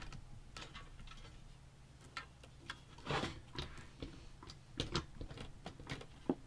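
Irregular clicks, taps and rustles of hands working cables and parts into a small PC case, over a low steady hum.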